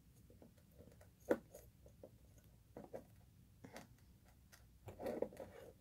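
Faint, irregular small clicks and rustles of green craft wire and beads being handled and twisted together on a beaded wire tree, with a sharper click about a second in and a few more clicks near the end.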